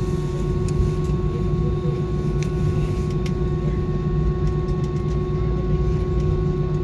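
Steady cabin noise inside a Super Air Jet airliner on the ground after landing: the jet engines at low power, with a constant hum and low rumble, and a few faint clicks.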